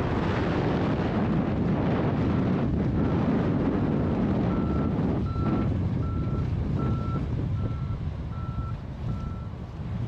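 Wind buffeting the microphone, with a machine's backup alarm beeping steadily about every half second, starting about two seconds in and running almost to the end.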